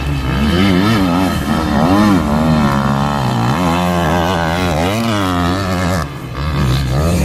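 Dirt bike engine revving on a motocross track, its pitch rising and falling again and again with the throttle. It dips briefly about six seconds in.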